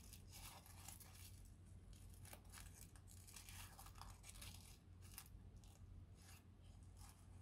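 Faint, irregular crinkling and rustling of a thin wrapping as a small telescope lens is eased out of it by hand.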